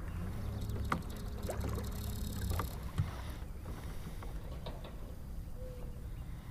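Minn Kota Endura Max 44 lb electric trolling motor humming steadily and cutting off about two and a half seconds in, followed by a single sharp knock.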